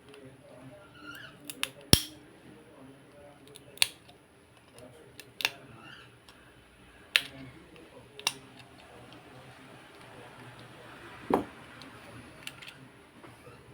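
A scattered series of sharp clicks and taps, about ten spread irregularly, the loudest about two seconds in. They come from a small hand tool working at the metal shield over a keypad phone's circuit board to lift it off.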